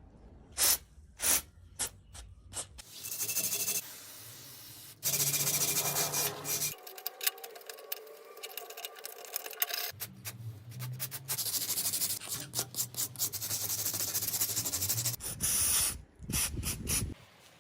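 Workshop restoration sounds cut together: a few sharp knocks, then long stretches of rough scraping and hissing from abrasive work on rusty metal. The sounds change abruptly at edits, and more knocks come near the end.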